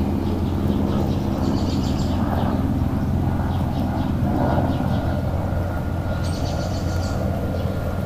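A steady low motor drone, with a small bird trilling briefly about two seconds in and again near the end.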